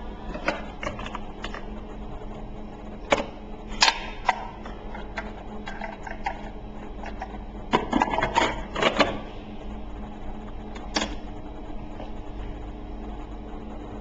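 Scattered clicks and knocks of a capsule coffee machine's parts being handled and moved, with a burst of rattling clicks about eight to nine seconds in, over a faint steady hum.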